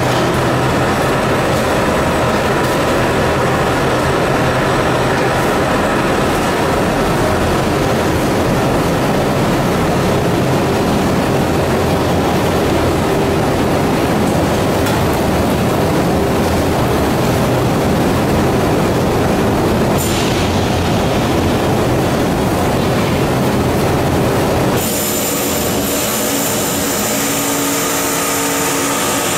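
Continuous fish fryer line running: a loud, steady mechanical noise of its conveyor drive and frying. About 25 s in, the sound changes to a slightly quieter hum with a few steady whines.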